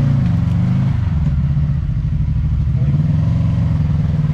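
Side-by-side UTV engine running on a rocky trail, its speed rising and falling as it is given throttle, once near the start and again about three seconds in.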